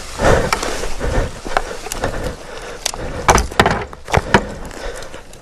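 Boots crunching and sliding through dry leaves, sticks and brush down a steep slope, with irregular snaps and knocks of twigs and branches.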